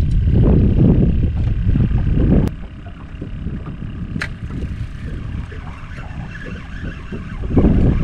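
Wind buffeting the microphone: a heavy, gusting low rumble that drops away suddenly about two and a half seconds in, leaving lighter wind noise with a single sharp click, before the rumble comes back near the end.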